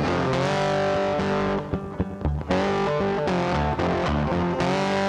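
Background rock music led by a distorted electric guitar holding sustained notes, with bass underneath; it thins out briefly about two seconds in.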